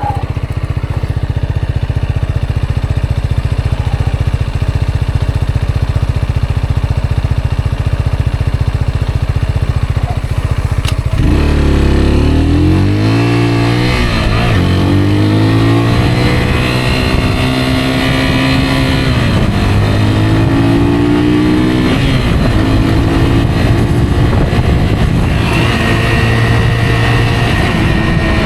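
Rieju Aventura 125's single-cylinder four-stroke engine running steadily at low revs, then about eleven seconds in it revs up. After that its pitch rises and drops several times as the bike accelerates through the gears.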